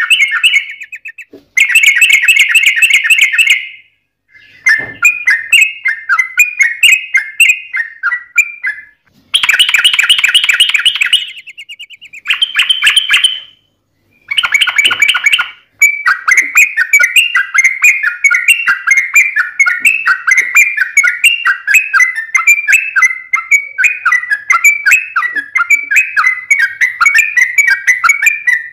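Yellow-vented bulbul (trucukan) singing loud, fast chattering phrases, several short bursts broken by brief pauses, then about half way through one long unbroken run of quick bubbling notes (a long 'ropel').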